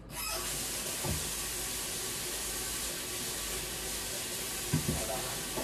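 Kitchen tap turned on and running steadily, with two soft thuds, one about a second in and one near the end.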